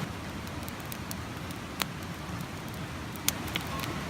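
Wood fire crackling, with scattered small snaps and a few louder pops over a steady low rumble.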